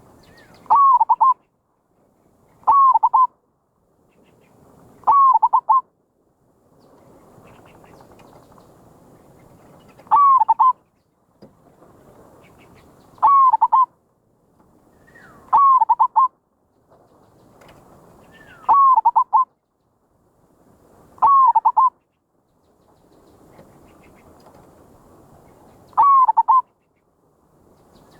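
Zebra dove (merbok) calling. Nine short cooing calls, each a quick rising note followed by a fast rolling trill, repeat every few seconds over a faint hiss. This is the bird's prized call, played as a lure recording to attract other merbok.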